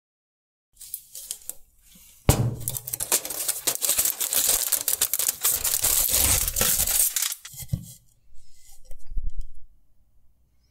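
Aluminium foil crinkling and tearing as it is peeled off the top of a clay pot, loud and continuous for about five seconds. After it come a couple of dull knocks.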